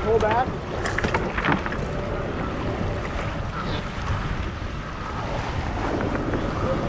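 Wind buffeting the microphone aboard a sailboat under way, a steady rumble with water rushing past the hull and a few light knocks about a second in.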